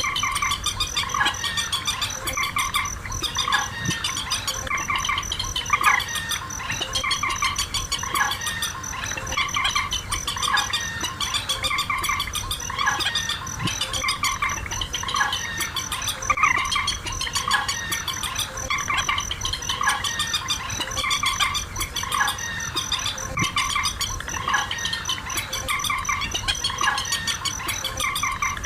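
Recorded calls of rails of the waterhen and swamphen kind, repeated over and over as a trapping lure, over a steady high insect-like trill.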